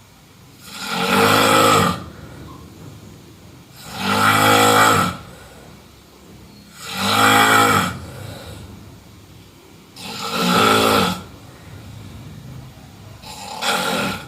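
A person snoring: five snores about three seconds apart, each lasting just over a second, the last one shorter near the end.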